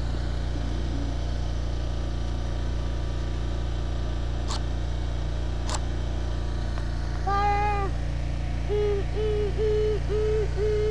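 Two quick scratches of a match struck on the side of its box, the second one catching, over a steady low hum. A few seconds later comes a pitched call, then a run of about six short notes at one pitch, two a second.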